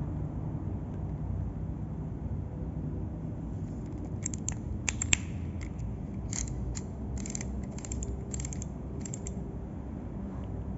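A steady low rumble, with a run of short, sharp clicks and ticks through the middle and one louder snap among them.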